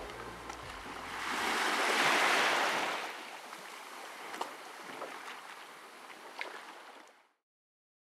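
Small waves washing onto a sandy shore: one swells and spills in about two seconds in, then softer lapping with a few light ticks, cutting off suddenly near the end.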